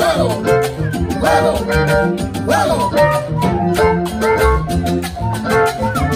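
Salsa band playing, with a steady percussion rhythm under pitched parts that swoop up and down.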